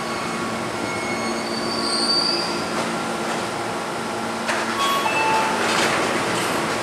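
Sotetsu 20000 series electric train rolling slowly into the platform and coming to a stop, with steady running tones and a brief high squeal about two seconds in. About four and a half seconds in, a hiss sets in as the train halts.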